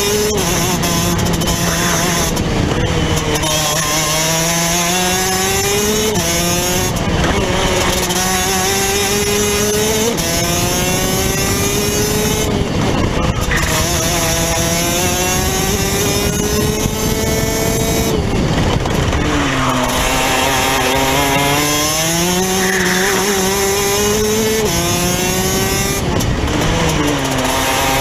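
Rotax DD2 kart's 125cc two-stroke single-cylinder engine at racing speed, heard close up from onboard. Its pitch climbs steadily under acceleration and falls off sharply several times as the kart takes the corners of the lap.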